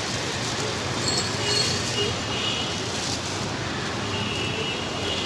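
Street traffic noise: a steady mix of passing vehicles, with a few brief high-pitched tones over it.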